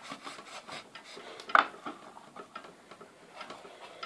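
Hands pressing and tucking stove rope around a small metal tin: rubbing and scraping with small clicks, and one sharper click about one and a half seconds in.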